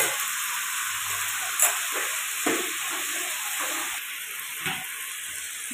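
Cubed potatoes frying in hot oil with cumin in a nonstick pan, a steady sizzle. A few light knocks of a ladle or spatula against the cookware.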